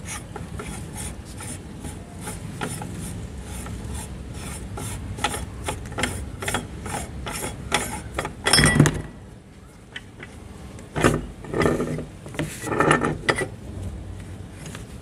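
Metal parts of a meat grinder being handled and taken apart: the perforated die plate and retaining ring click and scrape against each other, gritty with ground papadum crumbs. A run of quick light clicks gives way to a loud scrape just past the middle and a few more scraping rasps near the end.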